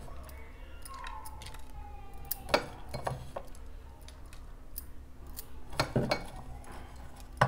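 Small, sharp clicks and taps of fingers picking chopped onion and chillies out of a small steel bowl and dropping them into crisp puri shells on a plate. The loudest taps come about two and a half seconds in and again around six seconds.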